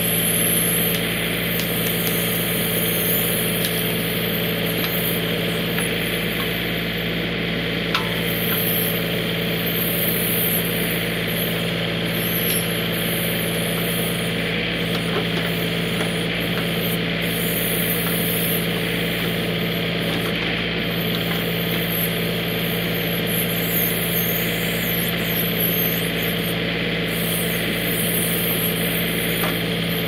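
John Deere 3032E compact tractor's three-cylinder diesel engine running steadily, with a single short knock about eight seconds in.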